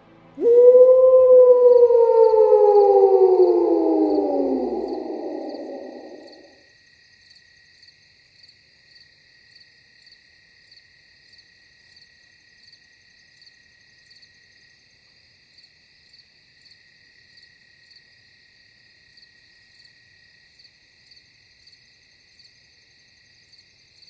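A long, loud wolf howl that rises briefly, then slides down in pitch and fades away over about six seconds. Crickets chirp steadily and faintly throughout, pulsing a little under twice a second.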